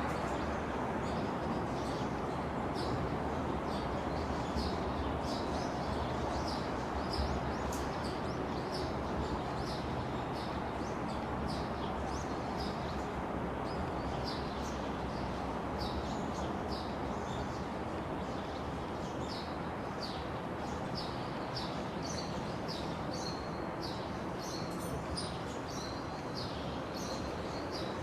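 Small birds chirping: short, high chirps repeat many times a second throughout. A steady background noise runs underneath.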